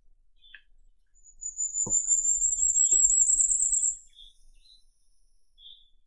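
Firecrest singing: one song about three seconds long, a fast run of very high, thin notes that rises slightly toward the end. A few faint short chips are heard around it.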